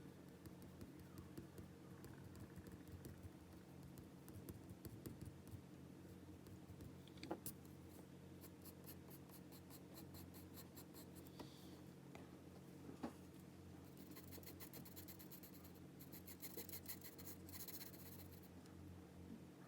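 Faint pencil scratching on paper in short, quick drawing strokes, with denser rapid shading strokes in the last few seconds. Two sharp clicks come about seven seconds in and about thirteen seconds in, over a steady low hum.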